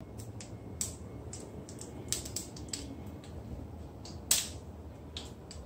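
Mustard seeds popping and spluttering in hot oil in a pan: scattered sharp pops at irregular intervals, with a louder pop about four seconds in. The popping shows the oil is hot enough and the tempering is under way.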